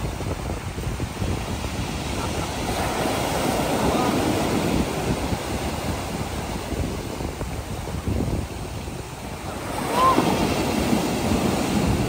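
Sea waves breaking and washing up a stony shore in a steady wash of surf, swelling louder about four seconds in and again near the end. Wind buffets the microphone with a low rumble.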